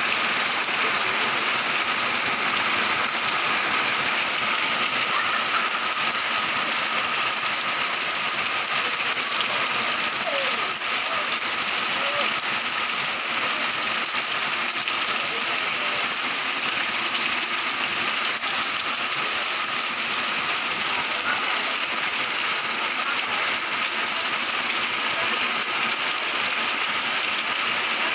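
Heavy rain pouring steadily, a downpour hard enough to flood the street, heard as an even, unbroken hiss.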